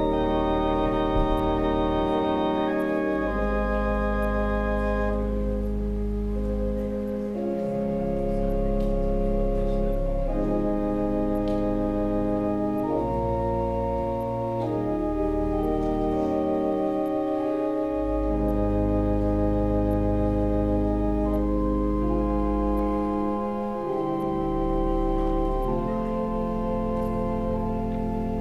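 Organ playing slow, sustained chords over long-held deep bass notes, the chords changing every few seconds.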